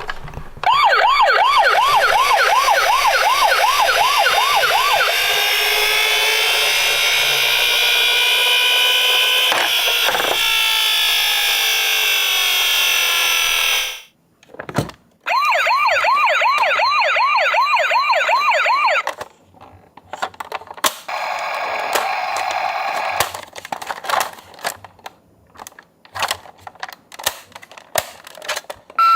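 Electronic toy emergency-vehicle sirens: a fast yelping siren wavering in pitch about three times a second, joined by other overlapping sirens. It cuts off suddenly about halfway through, returns for a few seconds, and gives way to a lower electronic tone and then scattered small clicks and knocks.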